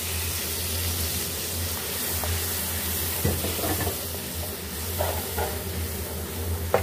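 Wet spice paste sizzling in hot oil in a metal pan as a wooden spoon stirs it, with a few short scrapes of the spoon in the second half.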